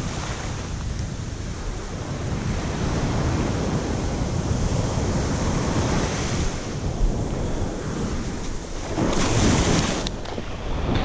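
Small surf waves washing up and running back over the sand at the shoreline, with wind rumbling on the microphone. A wave washes in louder about nine seconds in.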